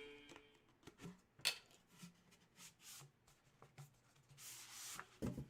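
Faint rustling and rubbing of packaging being handled, with a few light clicks and taps and a longer rustle near the end.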